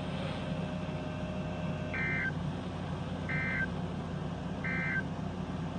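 Three short bursts of Emergency Alert System SAME digital data, a buzzy warble repeated about 1.3 s apart over a low steady hum: the end-of-message code that closes a weather alert.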